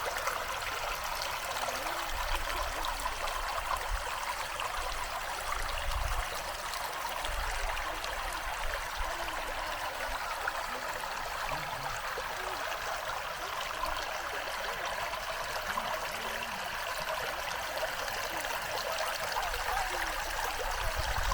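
Shallow woodland stream running and babbling over stones: a steady rush of water with small gurgles, and a low rumble now and then.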